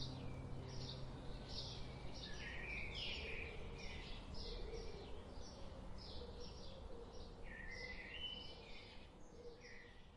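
Birds chirping and singing, a steady run of short calls with a few quick falling notes, over a faint low background; it slowly fades out near the end.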